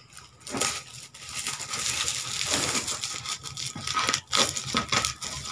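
Clear plastic wrapping on a parcel crinkling and crackling as it is cut and pulled open by hand, with many quick, irregular crackles.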